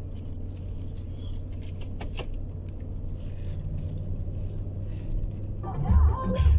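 Steady low drone of engine and road noise inside the cabin of a fully loaded 2015–2019 Chevrolet Tahoe/GMC Yukon, with a few light clicks and rattles in the first couple of seconds. Near the end, music with a heavy bass beat comes in over it.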